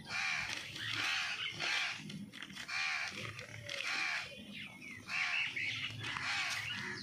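Crows cawing over and over, a short arched caw roughly every half second to second.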